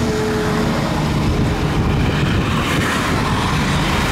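Highway traffic passing close by: steady tyre and engine noise from a pickup truck and cars going past at speed.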